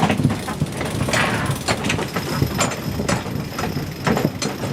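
Irregular clicks and creaks of a sailboat's deck gear and rigging working underway, over a steady low rumble.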